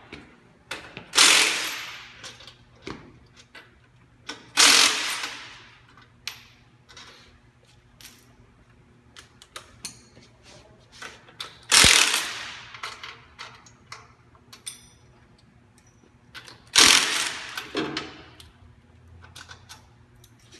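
Impact wrench with a 3/4-inch socket running in four short bursts of about a second each, undoing the bolts that expose the drivetrain belt of a Rhino RL500 concrete grinder. Small metal clicks and clinks of tools and parts come in between.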